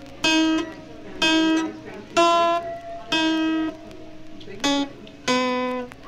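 A musical instrument playing six short separate notes, roughly one a second, each held briefly and then cut off; the fifth note is the shortest.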